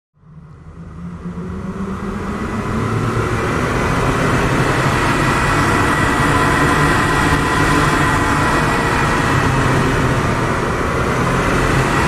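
Designed sports-car engine sound built from Porsche Carrera engine and exhaust recordings, with reverb added. It swells in from silence over the first few seconds, then runs steady and loud.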